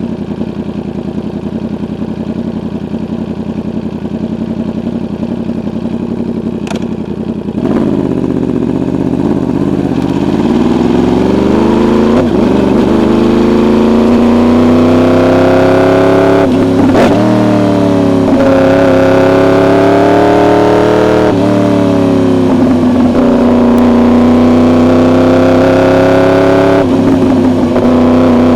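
Yamaha R1 inline-four with an SC-Project exhaust, running steadily and then, from about eight seconds in, accelerating hard through the gears. The engine note climbs and breaks off sharply at each quickshifter upshift.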